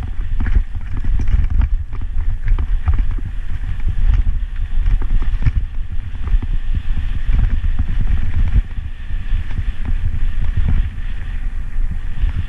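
Bicycle rolling down a rough unpaved mountain road: a steady low rumble with frequent short rattles and knocks as the bike jolts over stones.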